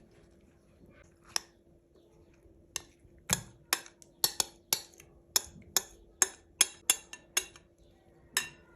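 Sharp clinks of kitchen utensils against dishes: about a dozen quick strikes, two or three a second, through the middle, with single clinks before and after.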